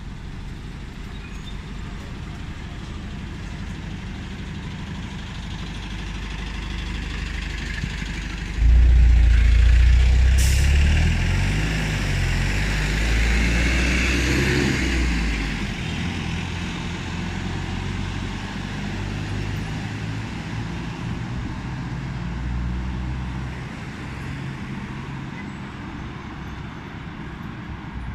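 City street traffic: a steady rumble and hiss of passing vehicles. About a third of the way in, a much louder low rumble starts suddenly and lasts several seconds before it settles back, with a single sharp click in the middle of it.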